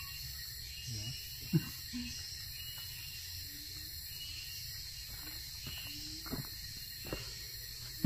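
Steady high-pitched chorus of forest insects, with a few soft knocks, the loudest about one and a half seconds in.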